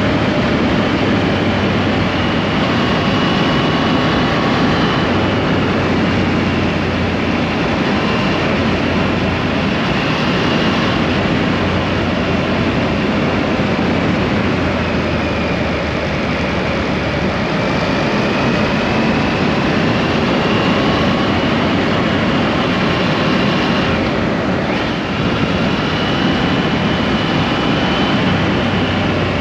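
Triumph motorcycle being ridden at a steady speed: a continuous engine drone under a heavy, steady rush of wind and road noise.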